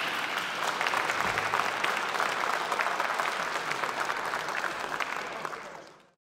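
Audience applauding, a dense patter of many hands clapping, which fades out shortly before the end.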